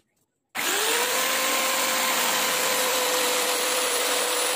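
A handheld electric power tool starts abruptly about half a second in and runs at a steady high speed with a constant whine.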